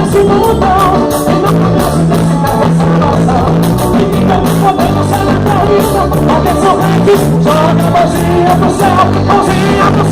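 Gospel forró band music with a steady beat and a melody line running above a held bass.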